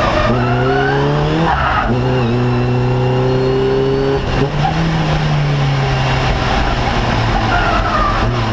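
Fun Cup race car's engine heard from inside the cockpit under hard acceleration: the revs climb, break at a gear change about two seconds in, then hold a steady high note, with a brief dip just past the midpoint.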